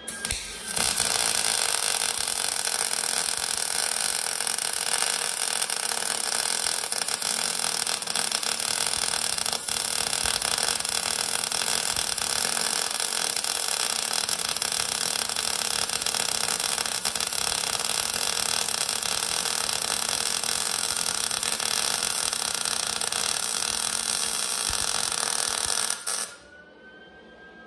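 Stick-welding arc from a 7018 electrode crackling steadily as a bead is run. The arc is struck about half a second in and broken off near the end.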